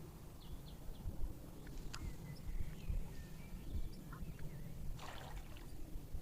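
Outdoor lakeside ambience: low wind rumble on the microphone with scattered short bird chirps, a few sharp clicks, and a brief rush of noise about five seconds in.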